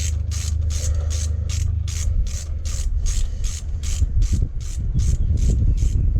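Socket ratchet winding in a bolt, its pawl rasping in short even strokes about three or four times a second.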